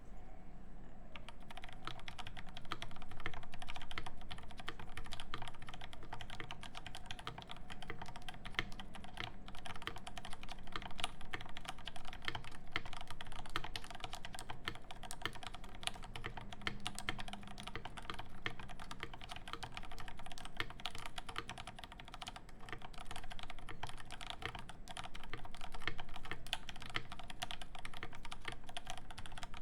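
Steady, fast typing on a Rama M60-A Tank Edition mechanical keyboard fitted with lubed Zelaios V1 Redux switches and GMK Deep Navy keycaps, a continuous run of key clacks starting about a second in.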